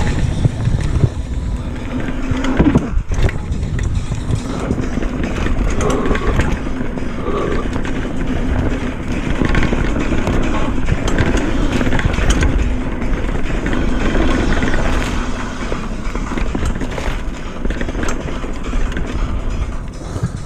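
Retro downhill mountain bike riding fast down a dirt forest singletrack: a steady rumble of tyres over dirt, with many short rattles and clicks from the chain and frame, and wind on the microphone.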